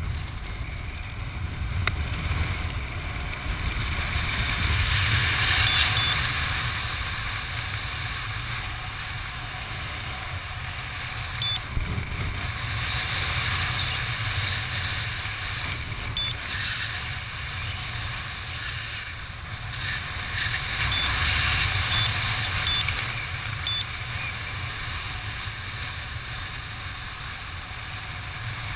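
Wind rushing over a camera's microphone during a parachute descent under an open canopy: a steady low rumble and hiss that swells and eases in gusts.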